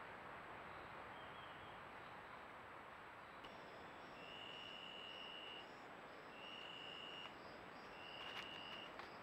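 Faint steady hiss, then a night insect's buzzing call: three long, steady high-pitched notes of about a second each, with short gaps between them. A faint tap comes near the end.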